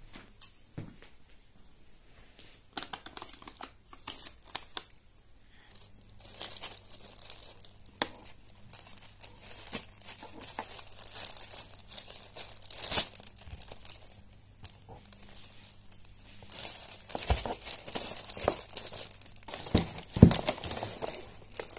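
Clear plastic bag crinkling and rustling as oranges are put into it and handled, with sharp knocks and a couple of dull thumps near the end.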